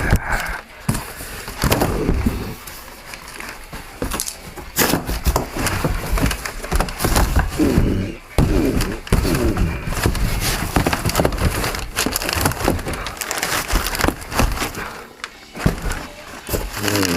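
Cardboard shipping box and packing material being handled and torn open: irregular crackling, scraping and knocks.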